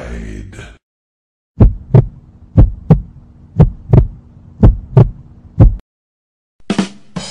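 Heartbeat sound effect: about five paired low thumps (lub-dub), one pair a second, over a faint low hum, stopping abruptly about six seconds in. A brief different effect starts near the end.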